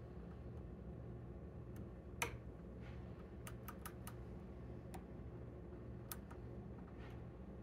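Hook pick raking and lifting pins inside a challenge-lock cylinder held under tension, giving small scattered metallic clicks: the loudest about two seconds in, then a quick run of four and a few more spaced out. A faint steady low hum sits underneath.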